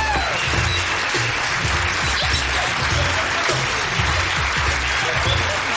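Studio audience applauding over music with a steady, repeating bass line.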